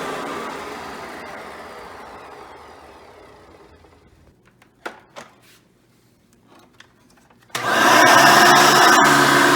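Hoover Decade Elite upright vacuum motor winding down after being switched off, falling in pitch and fading over about four seconds. A few sharp clicks follow in the quiet, then the vacuum switches back on about three-quarters of the way in and runs steadily at full speed.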